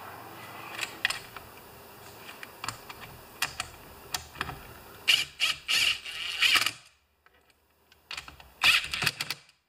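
Cordless power driver running in short bursts, driving screws into the recoil-starter cover of a Homelite XP 1020 chainsaw. There are clicks of handling first, then several quick runs about five seconds in, and another run near the end.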